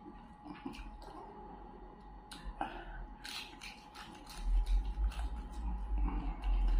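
Close-miked wet mouth sounds of a person eating fried fish: chewing and sucking oil off his fingers, a string of lip smacks and clicks through the middle. A low rumble comes in about four and a half seconds in.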